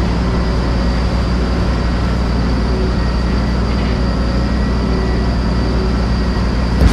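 Farm tractor engine running steadily with an even, unchanging drone.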